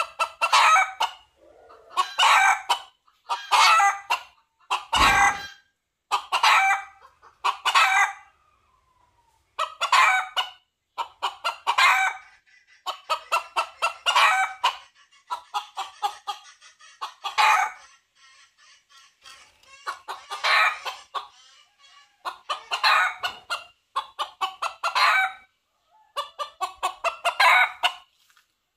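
Red junglefowl rooster giving bursts of rapid clucking calls, one every second or two, the calling of a cock seeking a hen.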